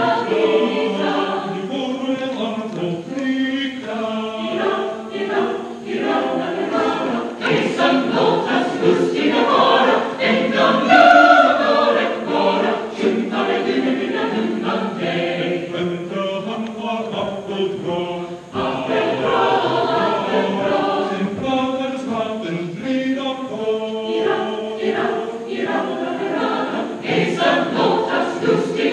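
Mixed choir of men and women singing, with a brief break between phrases about two-thirds of the way through.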